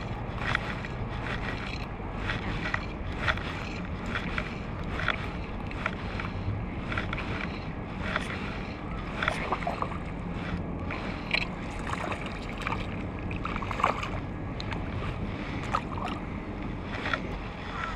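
Water sloshing and splashing close to the microphone, with many short splashes over a steady wash of moving water and wind.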